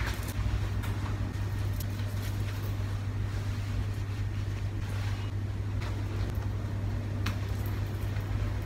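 A steady low hum, with a few faint rustles and clicks as denim clothing is put on and adjusted.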